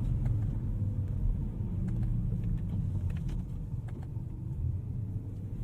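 BMW E46 M3 driving slowly on a snowy road, heard from inside the cabin: a steady low rumble of engine and tyres that eases slightly in the second half, with a few faint clicks.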